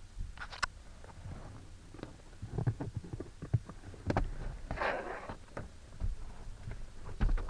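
Scattered clicks, knocks and rustling from hands working on a car's wiring and plastic trim, with a longer rustle about five seconds in.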